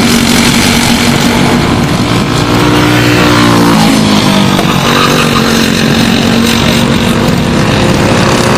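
Several Briggs & Stratton Animal four-stroke kart engines running together at racing speed, their engine notes shifting in pitch a few times.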